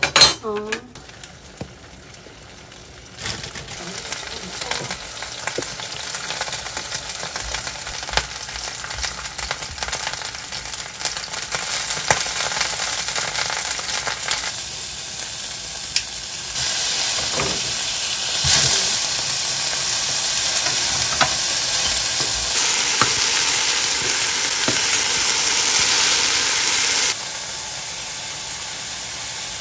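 Chicken breast frying in oil in a non-stick pan: a steady sizzle with small pops that builds from a few seconds in, grows louder, and drops abruptly near the end. A brief sharp pitched sound comes at the very start.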